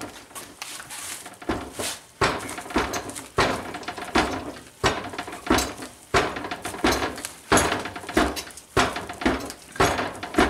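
Aluminium plate with TIG weld beads, clamped in a bench vise, being bent back and forth by hand in a bend test of the welds: a short, sharp metallic clack with each flex, repeating steadily about three times every two seconds.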